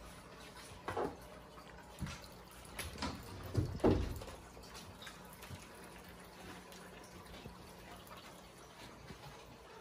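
A few soft thumps and knocks of kittens playing around a cardboard box on a wooden floor, the loudest about four seconds in, then only faint room sound.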